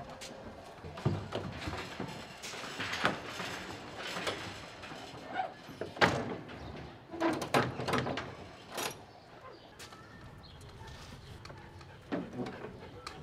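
Metal doors and inner gates of a Provan Classic livestock trailer clanking and banging as sheep are shut in. Several separate knocks and clatters, the loudest about 1, 3, 6, 7.5 and 9 seconds in, then quieter near the end.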